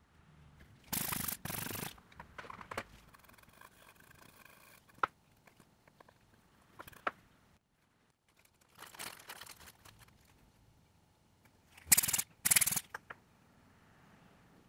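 Small hand tools working on a smartphone during disassembly: short scraping or rubbing strokes, some coming in quick pairs, and a few sharp clicks.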